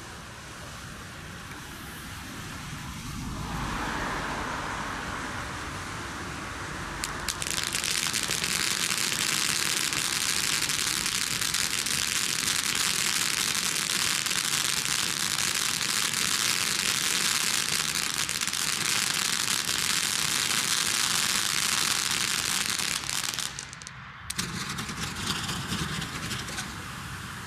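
Low-noise ground firework fountains spraying sparks with a steady loud hiss and crackle, swelling sharply about seven seconds in. The hiss drops out briefly near the end, then resumes with scattered crackles as lance-set pieces burn.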